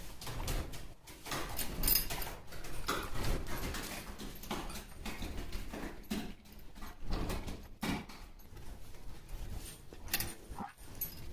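Holstein dairy cows snuffling and sniffing close to the microphone, in short, irregular noisy breaths with scattered knocks and rubs.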